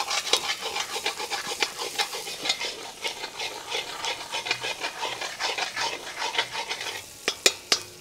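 A metal spatula stirs and scrapes sliced onions, garlic and ginger around a black wok in a stream of quick strokes, over a light frying sizzle. A few sharper taps come near the end.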